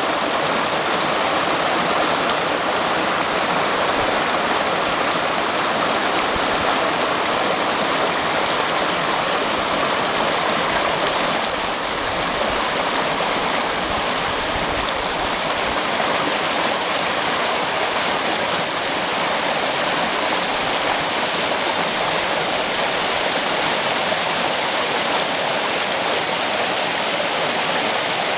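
Shallow stream flowing and rippling around a tree trunk standing in the water: a steady, even rush of running water.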